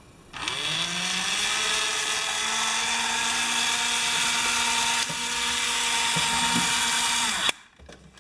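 Small electric motor of a scale electric fire truck's ladder mechanism running under power: it spins up about half a second in, runs steadily with a steady pitched hum, and cuts off abruptly near the end. A few light clicks come about five to six and a half seconds in.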